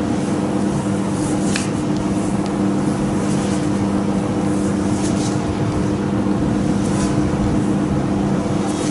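Steady mechanical hum with a couple of constant low tones, unchanging throughout, with a few faint brief brushing sounds.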